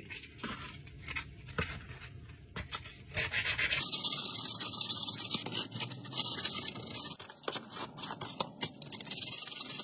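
120-grit sandpaper rubbed by hand over small 3D-printed parts coated in hard cured UV resin. A few scattered scratches at first, then from about three seconds in a steady run of quick back-and-forth sanding strokes.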